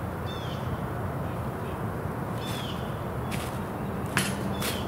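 A bird calling outdoors in short, repeated falling chirps, over a steady low rumble of wind or ambient noise. A few brief sharp clicks come near the end.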